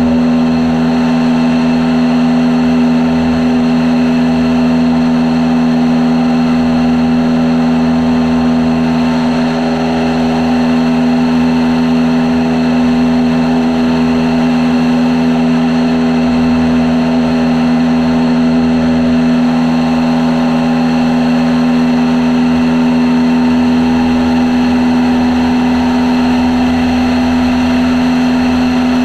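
Small propeller aircraft's piston engine and propeller droning in flight, holding one constant pitch at steady power.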